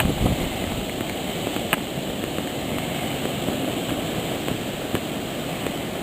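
Wind rushing and rumbling on the microphone in a heavy snowstorm, steady with a few faint ticks.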